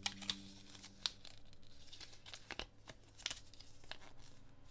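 Paper rustling and crinkling as a small folded instruction leaflet is handled and unfolded, with a handful of short crackles spread through.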